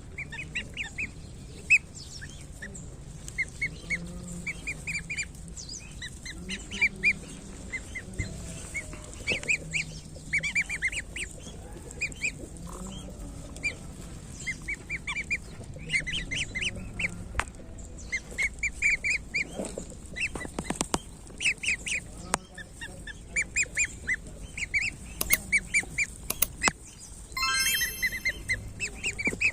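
One-week-old goslings peeping over and over: short high-pitched peeps in quick runs, with brief pauses between. A louder, harsher call stands out just before the end.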